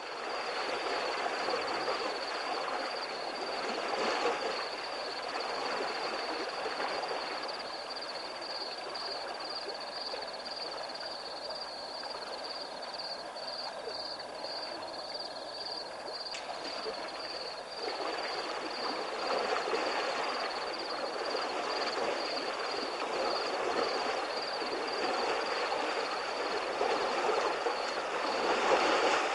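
Water rushing and sloshing as an elephant wades through a river, the noise swelling at times. A night insect trills steadily and high-pitched throughout in a fast pulsing rhythm.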